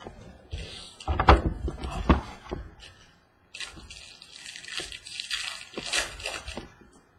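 Packaging of a sealed trading-card box being opened by hand: rustling and tearing with two dull thumps in the first two seconds or so, then a few seconds of dense crinkling wrapper.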